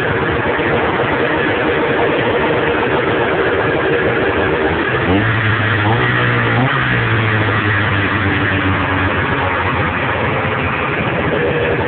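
1995 Arctic Cat ZR 580 snowmobile's two-stroke twin engine running, its pitch rising and falling about five to seven seconds in, then holding steady.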